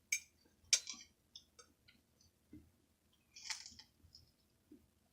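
Quiet close-up eating sounds of someone chewing, with a few sharp mouth clicks and smacks near the start, scattered small ticks, and a brief noisier rustle about three and a half seconds in.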